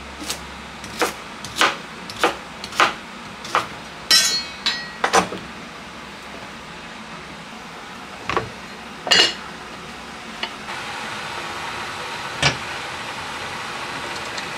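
Chef's knife chopping through sweet potato onto a plastic cutting board, about six strokes a little over half a second apart. Then metal clinks and knocks as vegetables go into a small enamelled cast-iron Staub cocotte and it is handled, with a steady hiss setting in near the end.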